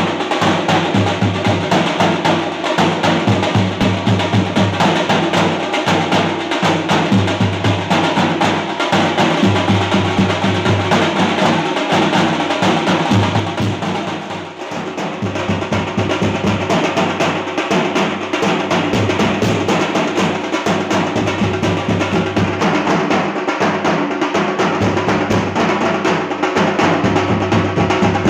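A drum troupe beating large steel-shelled drums with sticks in a loud, fast, continuous rhythm, dipping briefly about halfway through before picking up again.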